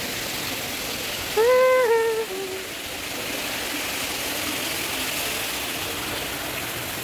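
A steady rushing, water-like noise, with one short high-pitched call about one and a half seconds in that rises, holds and then steps down.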